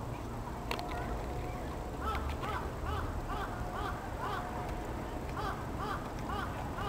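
A series of short, high animal calls, each rising and falling in pitch, repeated about twice a second from about two seconds in.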